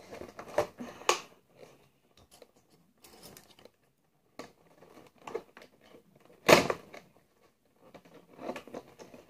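Doll packaging of cardboard and clear plastic being wrestled open by hand: irregular crinkling, tearing and clicks, with one loud crackle about six and a half seconds in.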